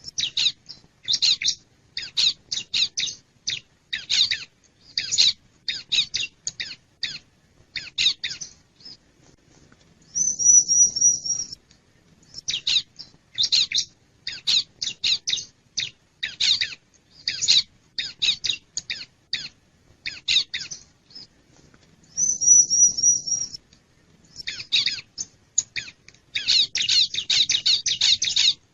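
Bar-winged prinia (ciblek) calls played as a bird-lure recording: runs of sharp, rapid chips, interrupted twice by a short, high, even trill.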